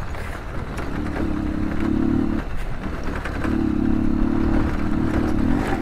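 Motorcycle engine pulling up a rough dirt track, the throttle opening and easing off every second or so, with rattles and knocks from the bike jolting over stones.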